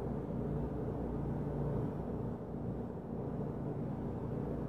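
Steady low rumble and hum through the ceiling from the apartment above, with a few low tones held throughout and no separate thumps standing out.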